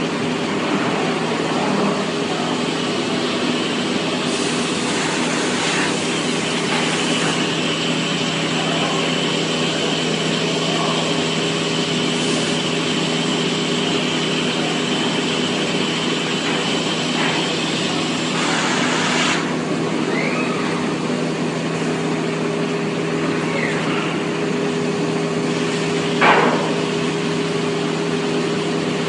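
Steady hum of a CNC machining centre and its loading robot at work. A high hiss and a thin whine run through the middle for about fifteen seconds, and there is one sharp knock near the end.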